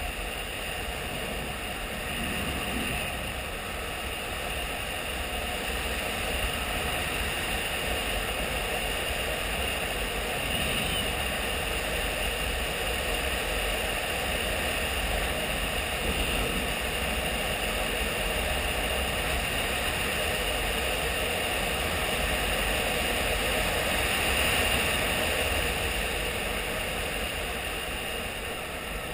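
Honda XRE 300 single-cylinder engine running at a steady cruise, with wind rushing over the microphone. The level swells slightly now and then.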